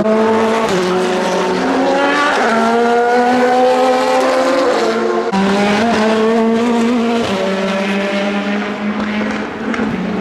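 Race car engines at full throttle. The pitch climbs and then drops sharply at each upshift, several times over, with more than one engine heard at once.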